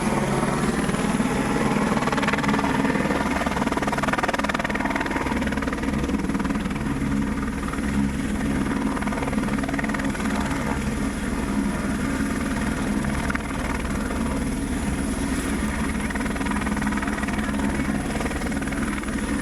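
Helicopter running steadily nearby, its rotor beating low and even, with a faint steady high whine above it.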